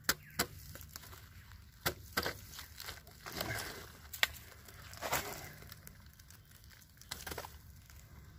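Hands breaking apart and scooping crumbly, termite-rotted log and stingless-bee nest debris: scattered crackles and crunches with a few sharp clicks.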